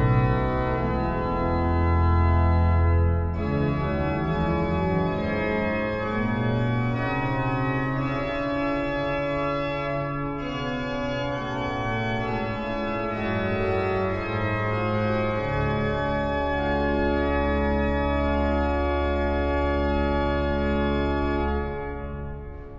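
The Great Silbermann Organ of 1714, a Baroque pipe organ, playing full sustained chords over a deep pedal bass. A long held chord near the end is released, and the sound dies away in the church's reverberation.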